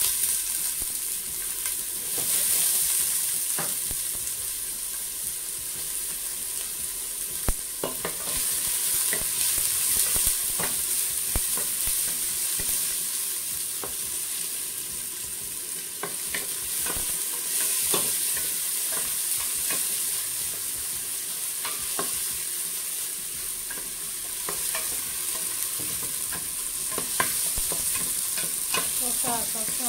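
Chopped red onions frying in hot oil in a stainless steel pot: a steady sizzle, with scattered sharp knocks as a wooden spoon stirs them against the pot.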